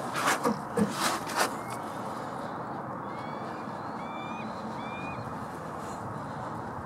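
A few sharp knocks in the first second and a half, then a distant bird giving four short calls that rise at the end, over a steady outdoor hiss.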